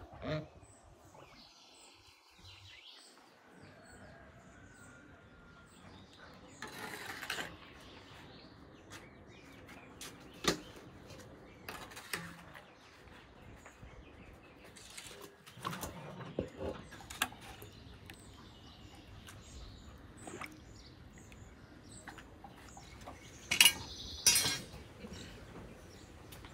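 Birds chirping faintly over quiet outdoor background, with scattered clinks and knocks of a ladle and stainless steel bowls as cooked apricots are scooped out. The loudest knocks come near the end.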